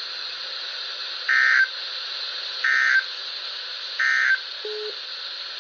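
NOAA Weather Radio broadcast sounding three short high beeps, evenly spaced a little over a second apart, with a shorter lower tone near the end, over steady radio hiss. The intermittent beeps show the transmitter is running on backup power.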